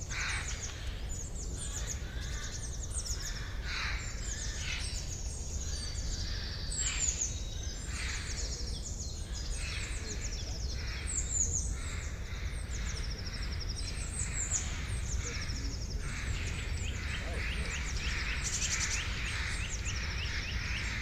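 A dawn-chorus-like mix of many songbirds chirping and trilling together, with a lower call recurring every couple of seconds, over a steady low background rumble.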